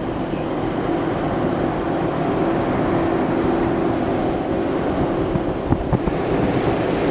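Toyota LandCruiser 200 series driving on beach sand: steady engine and tyre drone, with a couple of short knocks from bumps a little before six seconds in.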